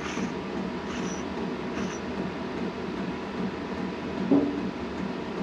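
Steady background hum of a fan running, with a brief sound of a voice a little past four seconds.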